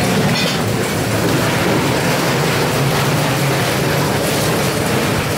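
Steady, unbroken roar with a low hum underneath: engines and traffic running close by on the street.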